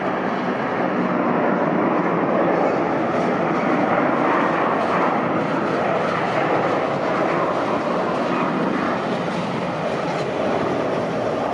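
Airbus A330-300 airliner with Rolls-Royce Trent 700 turbofans at takeoff thrust: a steady, loud rush of jet engine noise as it rolls down the runway and lifts off.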